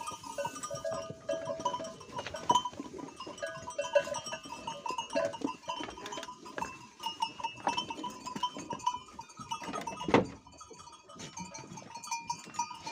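A flock of sheep and rams jostling at a feeding trough. Bells on the animals clink and ring on and off, among scattered small knocks and shuffling, with one louder knock about ten seconds in.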